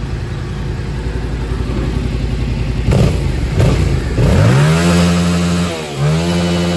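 Yamaha MT-07 parallel-twin engine running with a couple of quick throttle blips, then revved up about four seconds in and held high, dropping briefly and climbing again near the end. Its throttle-butterfly position has just been set to 49 on the diagnostic tool to bring back its normal growl, which it had been missing.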